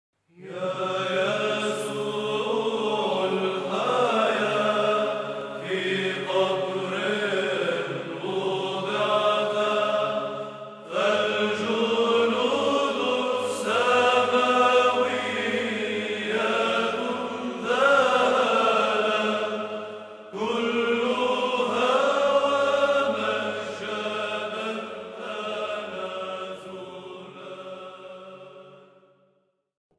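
Orthodox liturgical chant sung by a choir in three long, sustained phrases, fading out near the end.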